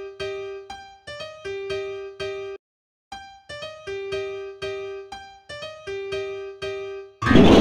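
MIDI rendition of an HTC phone ringtone: a short keyboard melody of separate notes, about two a second, played twice with a brief gap between. About seven seconds in, it switches abruptly to a much louder, dense wall of sound from a huge number of MIDI notes at once.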